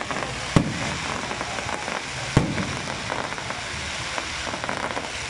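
Aerial fireworks: a dense, continuous crackling of bursting gold stars, broken by two loud booms of shell bursts, one about half a second in and another near two and a half seconds in.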